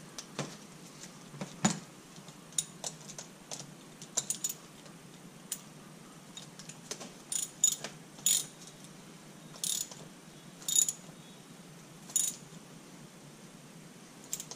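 Ratchet wrench clicking in short runs, about six bursts in the second half, as a bolt is wound in on a Honda CB125E engine. Single metal clicks and taps come in the first few seconds.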